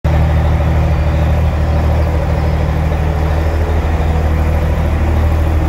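A long-hood Peterbilt semi truck's Detroit diesel engine idling steadily, a loud, even low rumble.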